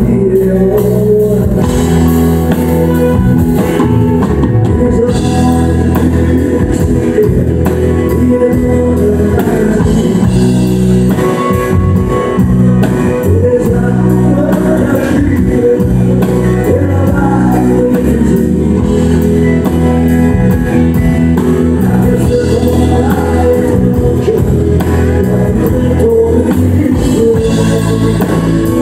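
A man singing a country song live, accompanying himself on a strummed acoustic guitar.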